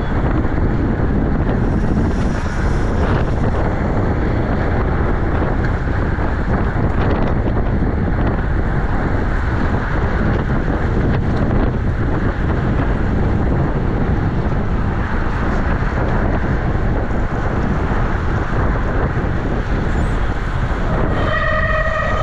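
Steady wind rushing and buffeting over the microphone of a camera on a racing bicycle at speed. Near the end a loud horn-like tone cuts in and changes pitch.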